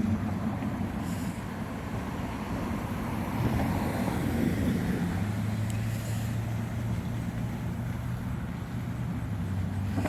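Road traffic going by: a steady rumble of passing vehicles that swells a little around the middle.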